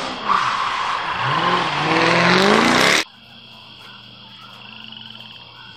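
A vehicle engine accelerating, its pitch rising under a loud rush of noise that cuts off suddenly about three seconds in.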